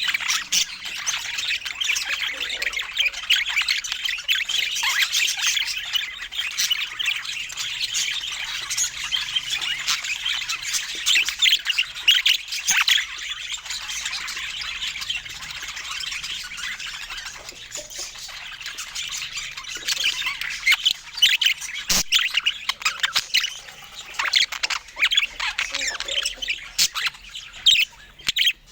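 Budgerigars chattering and chirping continuously, a busy stream of quick high chirps and squawks that thins out briefly in the middle and picks up again after about 20 seconds.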